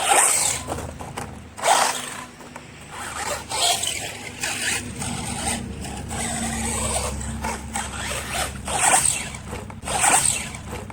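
Electric RC monster truck on a 3S battery running over dirt, its tyres scrabbling with several sharp, noisy bursts over a steady low drivetrain rumble.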